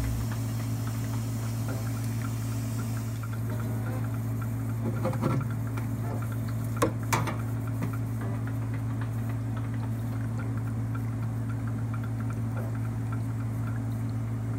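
A steady low hum, with soft handling noises about five seconds in and two sharp clicks about seven seconds in as the flounder is wiped and gutted on the cutting board.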